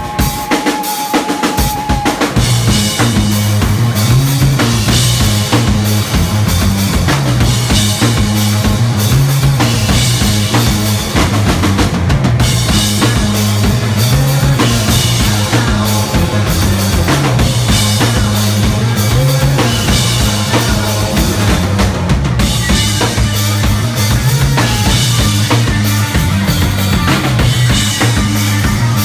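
Live rock band playing loudly: a drum kit with kick and snare under electric guitar. The full band comes in about two seconds in after a thinner opening.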